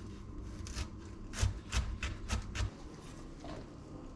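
Chef's knife chopping broccoli on a wooden cutting board: about five uneven knocks in the first three seconds.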